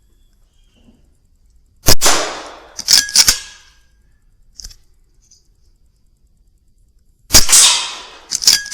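Weihrauch HW100 .22 air rifle firing twice, about five seconds apart. Each shot is followed about a second later by a couple of sharp metallic clicks.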